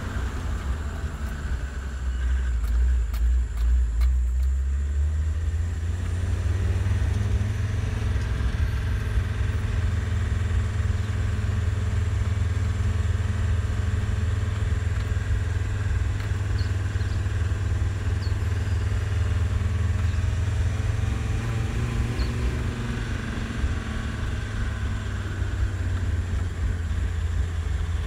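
Scale RC rock crawlers, a 1/9 Toyota Land Cruiser J80 and a 1/10 RC4WD Land Rover Defender D110, driving over rocks with a steady, low, engine-like rumble.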